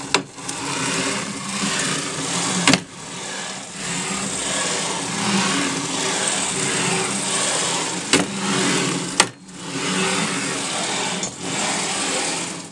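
Linear bearing blocks rolling and rattling along the steel rails of a home-built CNC router as its axes are pushed back and forth by hand. The noise comes in runs of a few seconds, broken by sharp knocks.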